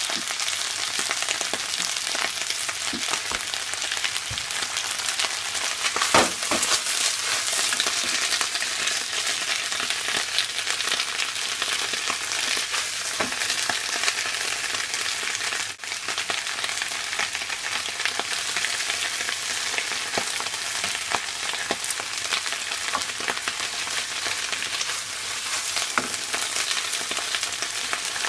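Napa cabbage stir-frying in a hot pan: a steady sizzle, with scattered clicks as it is stirred, loudest about six seconds in.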